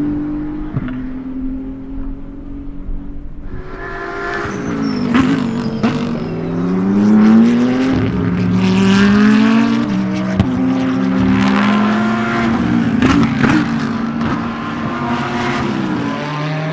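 BMW M4 GT3 race car's 3.0-litre twin-turbo inline-six (P58) at full throttle on track. The engine note climbs and drops sharply again and again as it shifts up through the gears, loudest as the car passes by.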